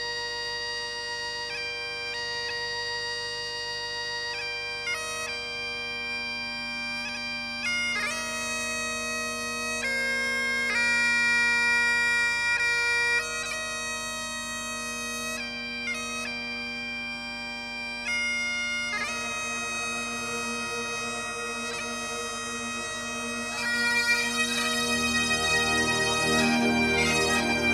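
Recorded music: bagpipes playing a slow melody of long held notes over a steady drone. About 24 seconds in the music grows louder and fuller as lower parts join.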